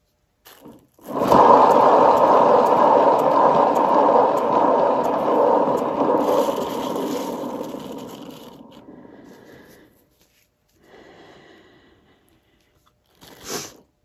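Hand-spun turntable carrying a wet acrylic-pour canvas, rotating with a loud rumbling scrape that starts about a second in, then fades over several seconds as it slows to a stop.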